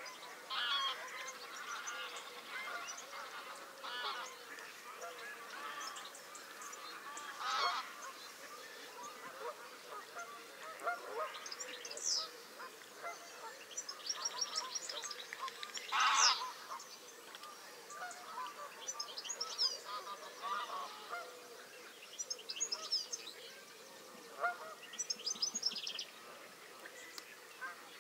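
A flock of Canada and greylag geese honking and calling on and off, with the loudest honk about halfway, and higher chirps of small birds in the second half.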